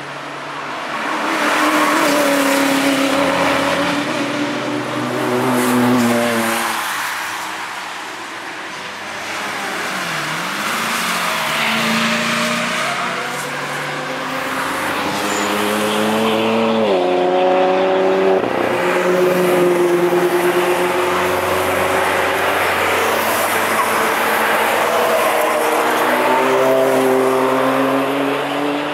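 Car engines driven hard on a race track, revving up and down through the gears as the cars pass by, with a sharp drop in pitch as one goes past and a sudden drop at a gear change. Tyres squeal now and then.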